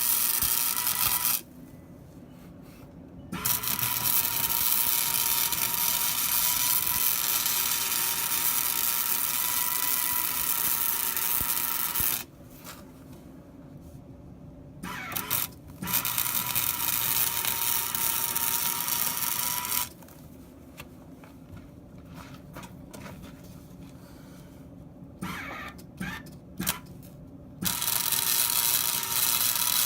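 Hobart welder's arc crackling and hissing as it lays weld beads on steel. It runs in stretches of several seconds, breaking off three times between beads, with a few short restarts near the end of the last pause.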